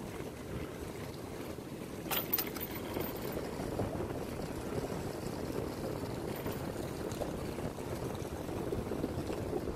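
Steady rumbling wind and travel noise on the microphone of a camera moving quickly along a road, with a few sharp clicks about two seconds in.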